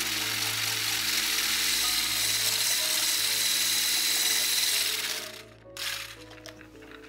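KitchenAid hand blender with its whisk attachment running at speed, whisking eggs and sugar in a plastic jug, a steady high whine over whirring. It switches off about five seconds in.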